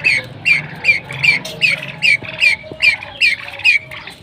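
A pheasant calling over and over: about ten short, high, wavering squawks in quick even succession, roughly two and a half a second, stopping near the end.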